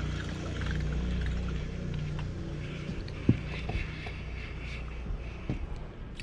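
Low steady hum of a fishing boat's motor, thinning out after a couple of seconds, with a few scattered knocks and clicks; the loudest is a single sharp knock about three seconds in.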